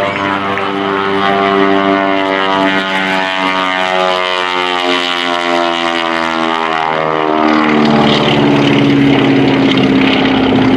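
Twin Beech 18's two 450-horsepower radial engines and propellers droning loudly in a low flyby. The pitch falls steadily as the plane passes, the drop of a passing aircraft.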